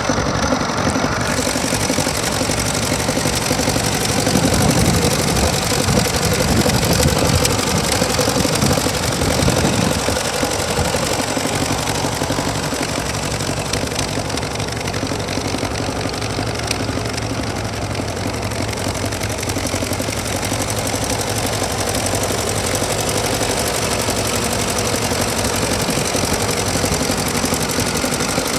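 Ford 2000 row-crop tractor's engine idling steadily. It runs a little louder from about four seconds in, then settles back about ten seconds in.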